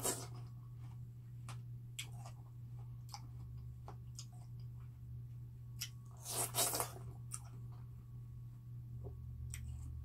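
A person biting into a wedge of watermelon and chewing it, heard as a string of short crunches. The loudest bite comes about six and a half seconds in. A steady low hum runs underneath.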